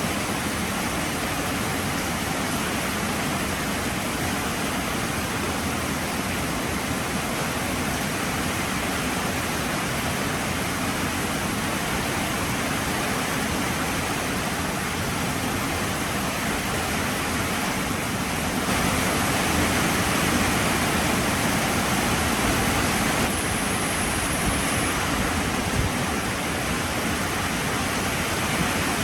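Heavy rain falling as a steady, dense hiss, which grows a little louder for about four seconds past the middle.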